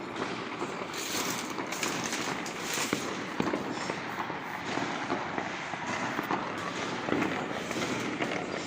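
Many fireworks and firecrackers going off at once: a dense, unbroken crackle of bangs, with a few louder single cracks standing out.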